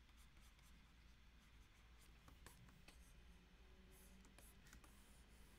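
Faint, scattered taps and scratches of a plastic stylus nib on a GAOMON PD156Pro pen display's screen during brush strokes, over a steady low hum.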